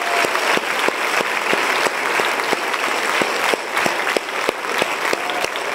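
Church congregation and choir applauding, a dense, even spread of many clapping hands with individual sharp claps standing out.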